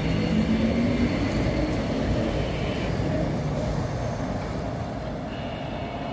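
Electric tram pulling away past the camera. Its traction motors whine, rising in pitch over the first second, and its running noise slowly fades as it moves off.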